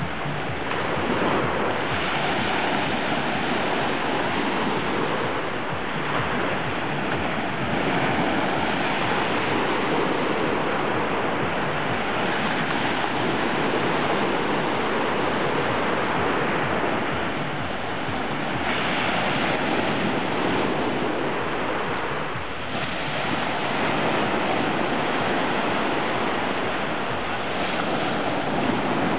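Small Black Sea waves breaking and washing up a sandy beach: a steady rush of surf that swells and eases gently with each wave.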